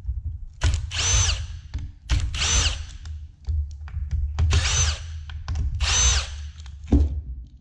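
Red Milwaukee cordless drill-driver backing out the screws that hold a hoverboard's battery pack: four short trigger pulls, its motor whine rising and falling with each. A single knock follows near the end.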